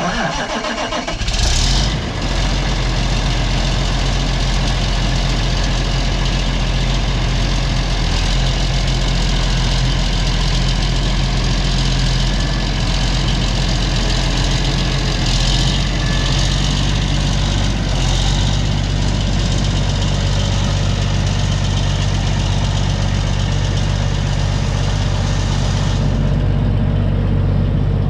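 New Holland TJ375 tractor's diesel engine starting up, catching within about two seconds, then idling steadily.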